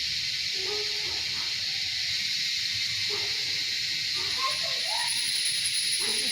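Dense, steady chorus of evening-calling insects (known locally as ninne or neendre), with a thin high whine joining about four seconds in. Faint distant voices sit underneath.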